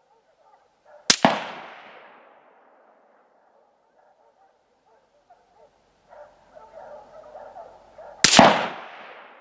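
Two rifle shots from an AR-15 with a 20-inch barrel firing .223 factory ammunition, about seven seconds apart, each with a fading echo.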